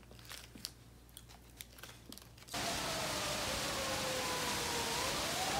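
Small rustles and clicks of a paper baking cup being peeled off a little sponge cake. About halfway through this gives way to a steady hiss of drizzling rain, with a siren whose pitch slides slowly down and then rises again.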